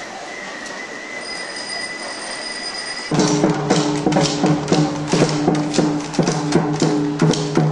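Steady background noise with a thin high whine; about three seconds in, music with a fast percussive beat and a held bass note cuts in abruptly and louder.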